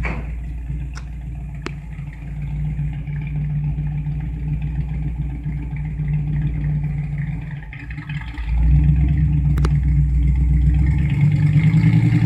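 1961 Chevy Apache's 307 small-block V8 running with a steady low rumble, then getting clearly louder about eight and a half seconds in as it is brought up on the throttle. A few faint clicks come through.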